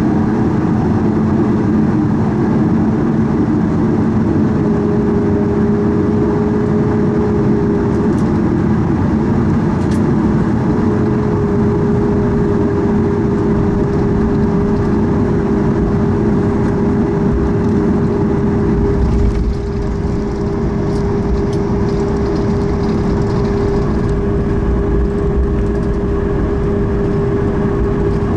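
Cabin noise of a Boeing 737 MAX 8 taxiing, its CFM LEAP-1B engines running at low thrust with a steady hum over a broad rumble. About two-thirds of the way through, a deeper rumble sets in.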